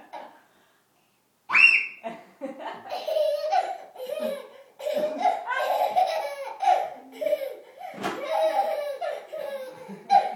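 A toddler laughing in repeated bursts, opening with a high squeal about a second and a half in, with a short lull near the middle.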